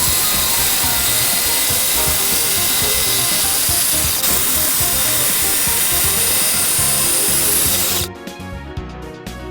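Homemade table saw running and cutting wood, a loud steady whine-and-hiss that cuts off abruptly about eight seconds in, with background music underneath.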